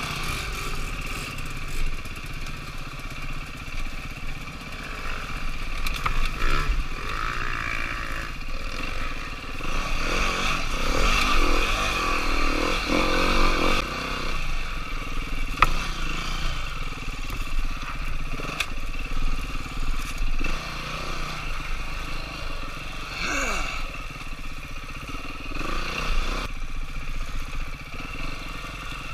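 Dirt bike engine revving up and easing off repeatedly while riding single-track trail, with occasional sharp knocks, the loudest about halfway through.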